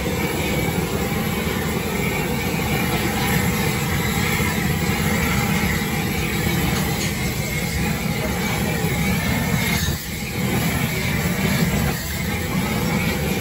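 Handheld gas torch blasting flame over a charcoal grill of meat, a loud steady rushing hiss that dips briefly about ten and twelve seconds in.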